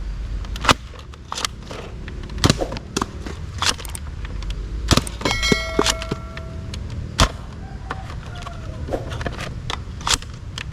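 Plastic toy blasters being handled: a string of irregular sharp clicks and knocks, with a brief ringing tone about five seconds in.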